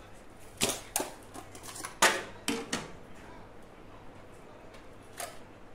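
Kitchen handling noises from a plastic food container and a metal baking tray as pepper strips are laid on chicken: about six short clicks and clatters, the loudest about two seconds in, over a faint steady low hum.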